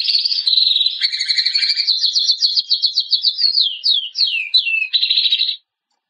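Domestic canary singing a long, fast song of high trills. Past the middle it breaks into a run of quick falling notes, then ends on a last trill shortly before the end.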